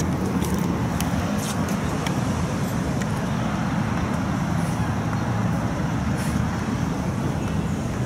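Steady road traffic noise: a continuous low rumble of passing cars at an even level, with a few faint ticks.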